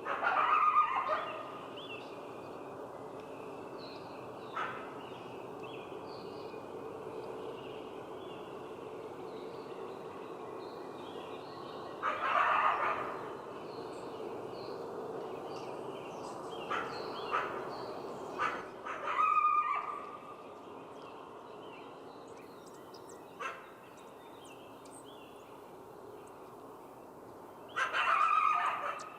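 Wolves calling in short bursts of yelps and yips over a steady background hiss. The loudest calls come about a second in, about twelve seconds in, in a cluster between about seventeen and twenty seconds, and again near the end.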